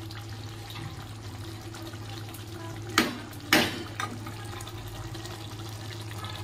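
Metal spatula knocking twice against an aluminium kadhai holding curry, two sharp clicks about half a second apart around three seconds in, over a steady low hum and hiss.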